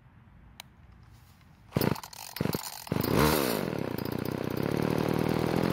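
Homelite XL chainsaw's small two-stroke engine being pull-started: a few short bursts, then it fires about three seconds in, revs briefly and settles into a steady run.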